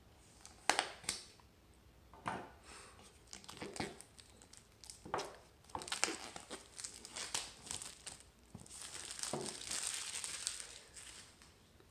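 Clear plastic shrink-wrap on a small cardboard box being slit with a pocket knife and peeled off, crinkling and tearing in irregular bursts. Two sharp scratches about a second in, and a longer stretch of steady crinkling near the end as the film comes away.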